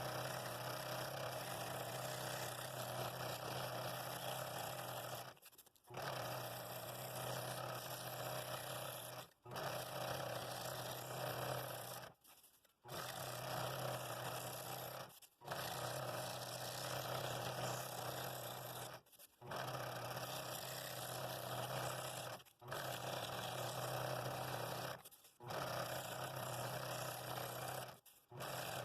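Scroll saw running and cutting wood: a steady buzzing drone with a low hum, broken by brief silent gaps every three seconds or so.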